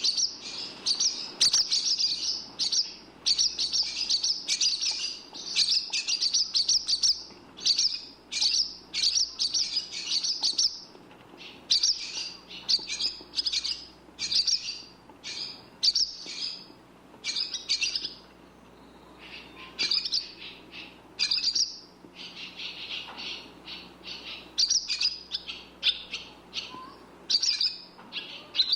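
Barn swallow twittering: rapid runs of high chirps and warbles in bursts of a second or two with short gaps, quieter for a while in the middle.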